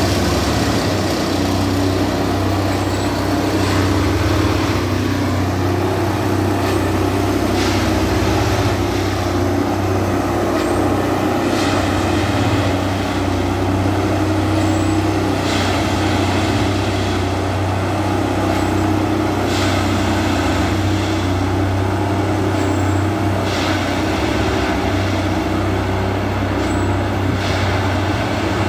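Plasser & Theurer Dynamic Tamping Express track tamping machine working along the line: a steady heavy diesel-and-hydraulic drone with a low hum, and a short burst of noise about every four seconds as it works through the ballast.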